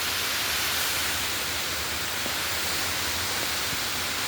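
Waterfall: a steady rush of falling water with no change in level.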